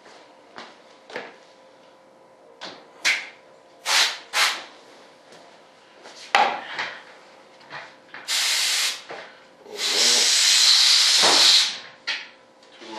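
A spray gun hissing in two bursts, one about a second long and a second of nearly two seconds, spraying Partall mold-release film. Before them come scattered short knocks and clicks of handling on the bench.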